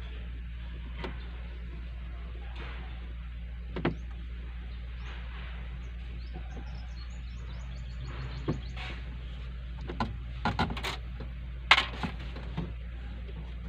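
Hands and a screwdriver handling wiring and plastic dashboard trim behind a truck's glovebox: scattered clicks and knocks, the sharpest a little before the end, over a steady low hum.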